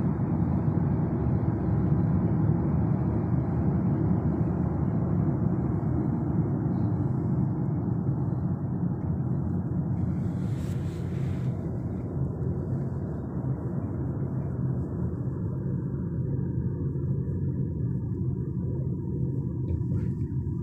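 Steady road and engine rumble heard inside the cabin of a car moving at highway speed, with a brief hiss about halfway through.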